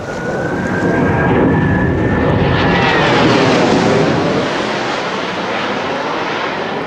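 Blue Angels F/A-18 Hornet jets passing close overhead: a high engine whine climbs slightly over the roar, then drops in pitch as the jets go by about three seconds in, when the roar is loudest, settling into a steady, slightly quieter rumble.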